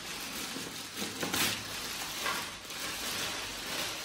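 Clear plastic wrapping crinkling and rustling as it is pulled up off a water-heater tank, with a louder rustle about a second and a half in.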